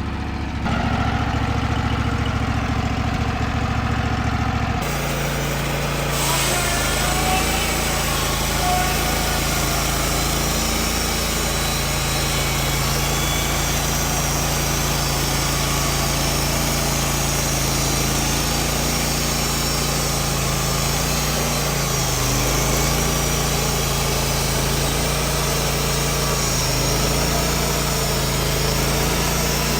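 Wood-Mizer LT15WIDE portable band sawmill's engine running steadily. About five seconds in the sound changes abruptly, and a steady hiss joins the engine for the rest of the run.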